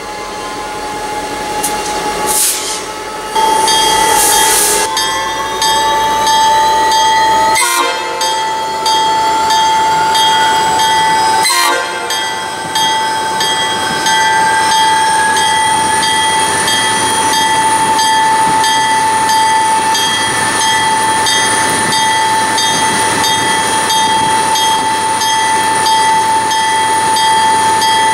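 Norfolk Southern GP60 diesel locomotive's air horn sounding for a grade crossing in long blasts, broken briefly twice. Under it, a whine rises slowly in pitch as the engines load up pulling the train.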